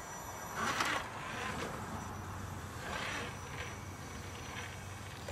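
Electric motor of an RC4WD Defender 90 scale RC crawler whining in several short bursts as it crawls over rocks, the loudest burst about a second in.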